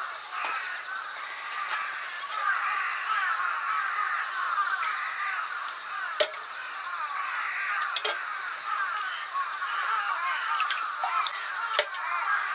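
A dense flock of birds chattering and calling all at once, many short overlapping chirps with no break, with a few sharp clicks now and then.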